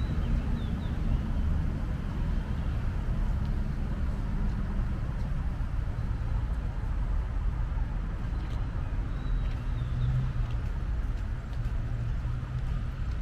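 Steady rumble of road traffic from the surrounding city streets, with a few faint bird chirps over it.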